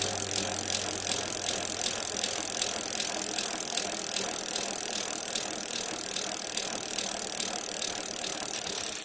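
Bicycle ride recorded on a helmet or bike camera: a steady high hiss with rattling and faint regular ticking, about three ticks a second.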